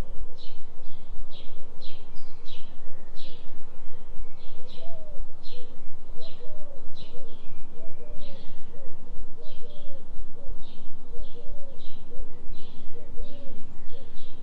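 Forest birds chirping, a steady run of short high chirps with softer warbling lower down. Underneath, a low binaural delta tone hums and pulses about three times a second.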